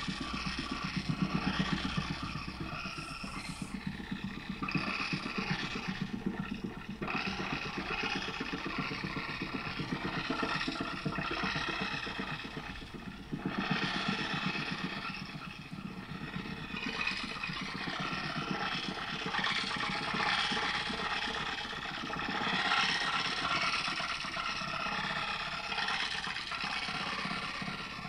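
Granular guitar-pedal loop: a ring-modulated, reversed loop chopped into very short grains by granular delay pedals such as the Red Panda Particle, making a dense, buzzing, rapidly stuttering texture. Its character shifts a few times, about 3, 7 and 13 seconds in. It is recorded through a phone microphone.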